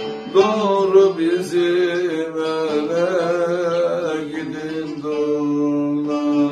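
A man singing a Turkish folk song in a long, wavering melismatic line over a plucked bağlama (long-necked saz). About five seconds in the voice stops and the bağlama carries on alone with steady, held notes.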